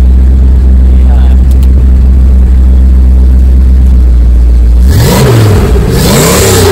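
Ford 460 (7.5-litre) big-block V8 of a 1983 F350 idling steadily, then revved twice about five seconds in, the pitch climbing and falling with each rev.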